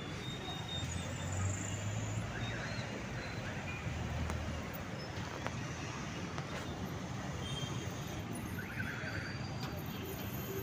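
Steady traffic noise at a busy city intersection: many motorcycles, cars and buses running and passing, with a low engine hum underneath and a few faint short high tones.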